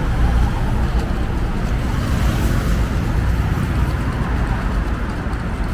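Steady road traffic noise from cars passing on a busy road, mixed with the low rumble of a pet stroller's wheels rolling over uneven paving tiles.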